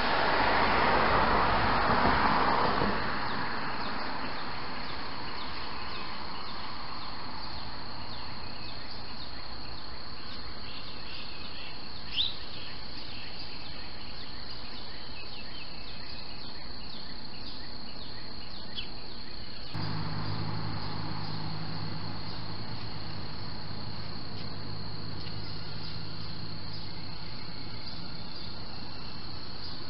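Outdoor ambience picked up by a security camera's microphone. A rush of noise swells and fades over the first three seconds, then a steady hiss stays with a constant high-pitched whine. There is a single short chirp about twelve seconds in, and a low hum starts suddenly about twenty seconds in.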